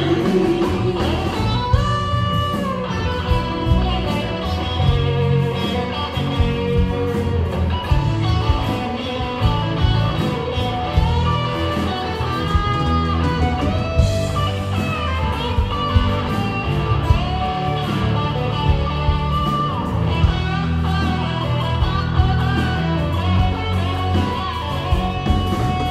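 Band music with no vocals: a guitar plays a lead line with bent, sliding notes over bass and a steady drum beat, in a blues-rock style.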